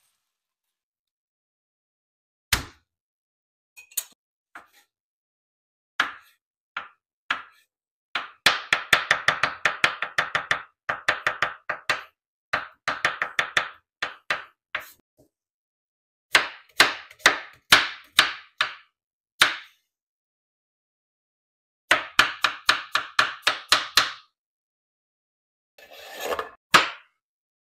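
Kitchen knife chopping garlic and onion on a bamboo cutting board: a few single knocks, then quick runs of blade strikes, several a second, each run lasting a couple of seconds with silent gaps between.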